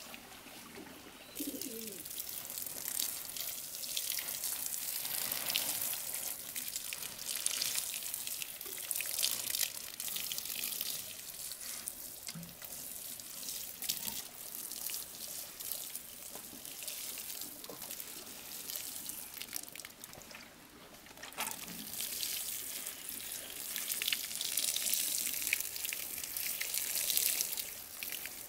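Water spraying from a plastic watering can's rose onto soil and seedlings, a steady hiss that starts about a second in and pauses briefly about two-thirds of the way through.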